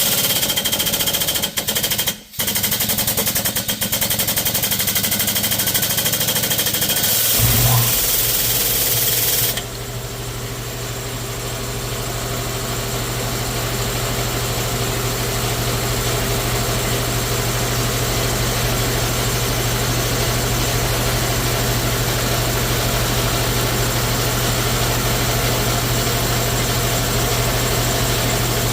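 A power tool runs loudly with a rattling hiss for about nine seconds, cutting out briefly about two seconds in. A steady, engine-like low machine hum starts about seven seconds in and keeps running, described as pretty loud.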